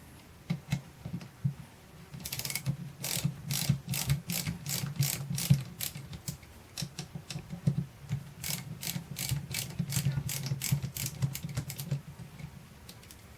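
Ratchet wrench clicking in runs of sharp, even strokes, about two to three clicks a second, with short pauses twice and stopping near the end: a fastener being undone on a car starter motor.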